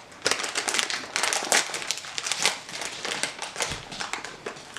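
Plastic snack wrapper crinkling and crackling as it is handled and torn open, with many sharp, irregular crackles.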